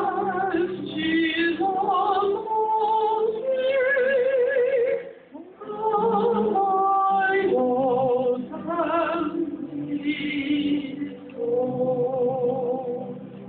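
A solo singer with a strong vibrato, accompanied by sustained chords on an electronic keyboard, with a short break between phrases about five seconds in.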